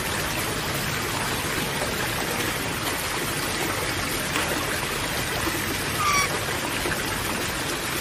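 A steady rush like running water, with one short bird call about six seconds in.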